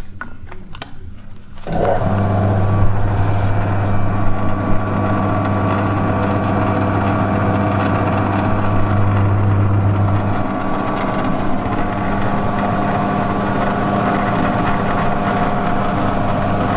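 Home-built 70 cm wide belt-driven drum sander switched on at a rotary wall switch. Its electric motor starts about two seconds in and then runs steadily, spinning the sanding drum with a deep electrical hum; the deepest part of the hum drops away about ten seconds in.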